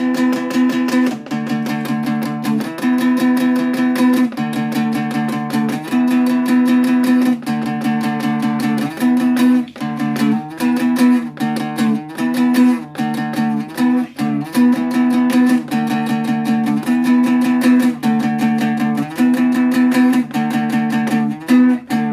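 Background music: a guitar intro with quickly repeated plucked notes and chords, no singing.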